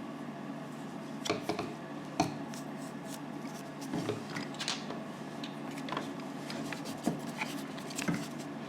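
Cerium oxide polishing compound being rubbed by hand onto a small Dremel polishing wheel: scattered short rubs, scrapes and light knocks over a steady low hum.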